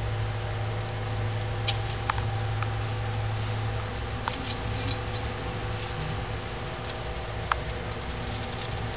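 Siberian dwarf hamsters moving about their cage, rustling and clicking among sunflower seeds and wood shavings, with a handful of sharp little clicks over a steady low hum.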